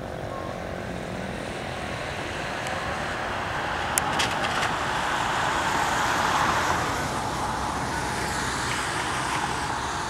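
Road traffic: a vehicle passing on wet pavement, its tyre hiss swelling to a peak around six seconds in and then easing, with a few light clicks about four seconds in.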